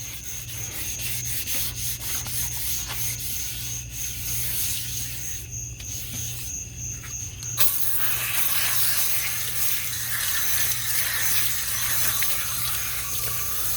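Hand sanding of primer on a wheel's lip with sandpaper worked under the fingers: a run of short scraping strokes, turning to a louder, steadier scrubbing about eight seconds in that stops abruptly near the end. Crickets chirp steadily in the background.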